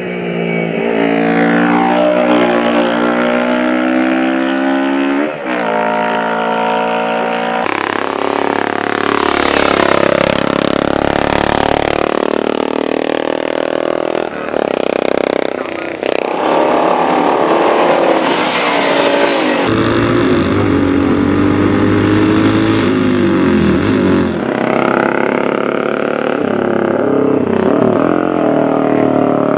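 Racing motorcycle engines revving hard as bikes run at speed, their pitch climbing and dropping through gear changes. The sound switches suddenly from one engine to another a few times.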